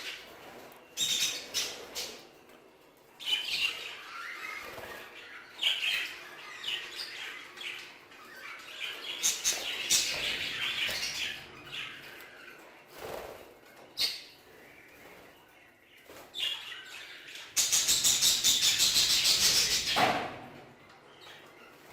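A flock of budgerigars chirping and squawking, with scattered calls throughout. Near the end comes a burst of rapid, even pulses lasting a couple of seconds, like a flurry of wingbeats.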